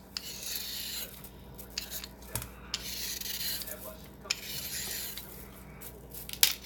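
A vegetable being peeled by hand: about five or six rasping scrape strokes, each under a second, with small clicks between them.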